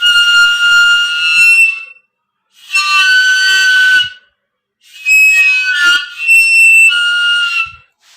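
Homemade crown cap whistle, a bottle cap with a tightly stretched balloon membrane, blown in three loud, shrill blasts of one and a half to three seconds each. The last blast is the longest and wavers in pitch partway through.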